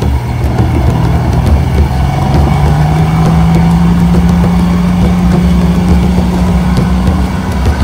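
Off-road 4x4's engine running hard at high revs. Its pitch rises over the first few seconds and then holds steady, over a heavy low rumble.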